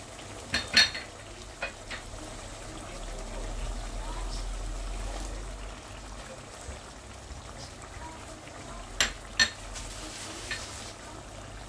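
Gravy simmering in a nonstick pot with a faint steady sizzle, broken by sharp clinks of kitchen utensils against the pot and bowl. A loud pair of clinks comes just under a second in and another near the end, with a couple of lighter taps between.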